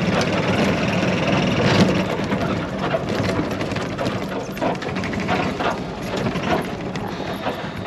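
A vehicle engine running steadily while the vehicle drives over rough, bumpy ground, with scattered knocks and rattles.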